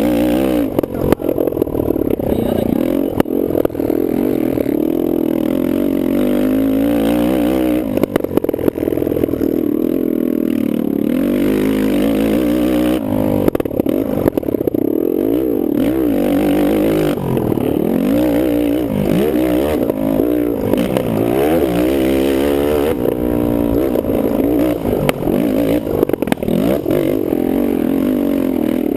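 Kawasaki KFX450R quad's single-cylinder four-stroke engine revving up and falling back over and over as it is ridden hard around a motocross track, with occasional sharp knocks.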